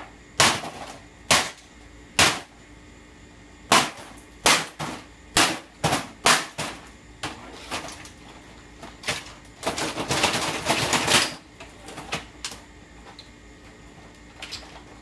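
Hammer blows smashing an old Magnavox amplifier: about a dozen sharp, irregularly spaced impacts, with a dense flurry of rapid hits and rattling about ten seconds in.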